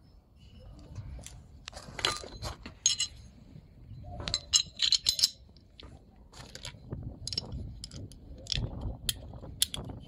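Sharp metallic clicks and clinks in irregular clusters as a Glock 17 Gen 5 slide, a 664werx .380 ACP conversion barrel and the recoil spring assembly are handled and fitted together.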